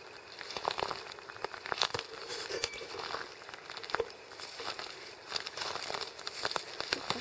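Dry grass and leaf litter rustling and crackling in an irregular run of short crackles, sharpest about two and four seconds in.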